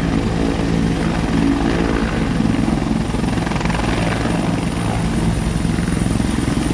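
Bell 412 helicopter running, its four-bladed main rotor chopping steadily over the sound of its twin turboshaft engines. A thin high whine becomes clearer about halfway through.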